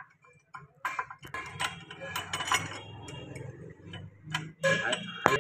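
Metal clicks and clinks of a steel shift rail being slid through a tractor gearbox housing and its shift fork, ending in a sharper knock. A steady low hum runs underneath.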